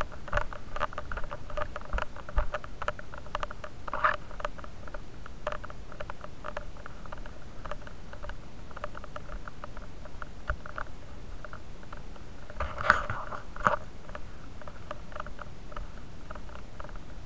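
Close-up rubbing, scraping and clicking of a body-worn action camera against clothing and gear as the wearer moves, a dense patter of small clicks. About thirteen seconds in, two sharper, louder clicks come less than a second apart.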